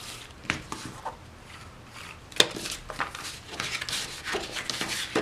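Light rubbing and scattered small clicks of a glue roller and fabric-covered cardboard pieces being worked and handled on a table, with one sharp tap about two and a half seconds in.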